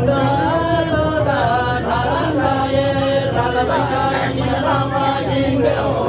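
Men chanting a jhakri (shaman) ritual chant in long held notes that slide up and down.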